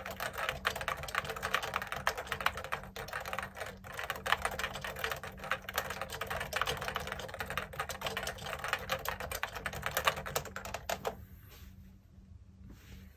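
Continuous typing on a JUKI Celavi FK212-JS keyboard with Topre Hipro switches and 25 g domes, feet extended and resting on two stacked deskmats, picked up by an iPhone 12 Pro microphone. The typing stops about eleven seconds in.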